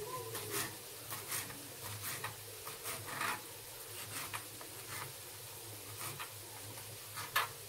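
Kitchen knife mincing parsley on a plastic cutting board: irregular taps of the blade on the board in small groups, sparser in the second half.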